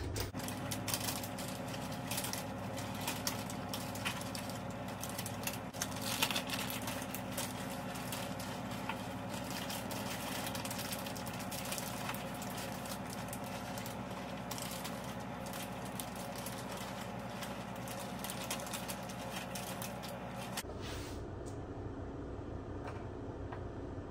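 Plastic bags of shredded cheese crinkling and rustling, with many small crackles and clicks, as cheese is shaken out of them. A steady hum sits underneath and changes pitch near the end.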